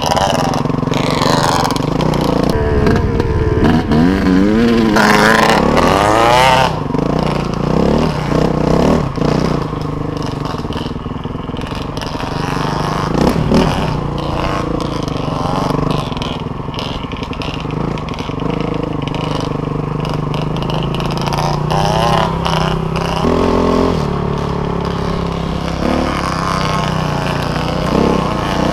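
Dirt bike engine running close up, its pitch rising and falling as the throttle is opened and backed off while riding.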